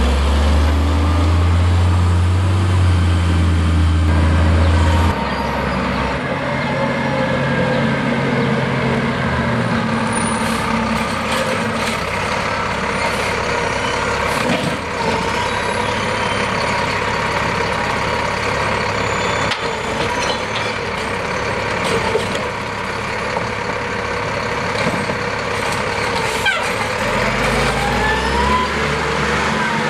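Automated side-loading garbage trucks at work: a diesel engine running with a steady hydraulic whine, scattered metallic clanks, and the engine revving up near the end.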